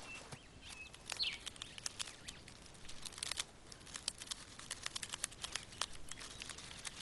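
Cape ground squirrel gnawing and crunching a seed held in its forepaws: rapid, dry crackles and clicks. A bird gives short high chirps near the start, one sliding downward about a second in.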